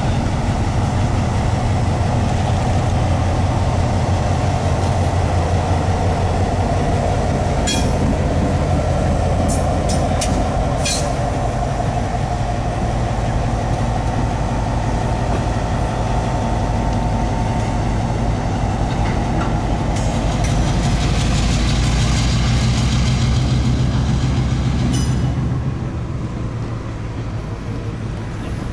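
EMD SW1500 switcher locomotive's 12-cylinder diesel engine running steadily as it passes close by pulling a flatcar, with a few sharp clicks about 8 and 11 seconds in. The engine sound eases off near the end as the locomotive moves away and the car rolls past.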